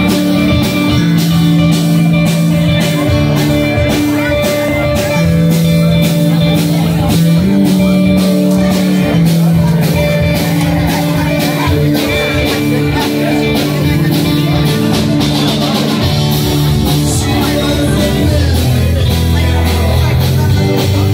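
Live blues band playing: electric guitars and bass over a steady drum beat, with the crowd talking underneath.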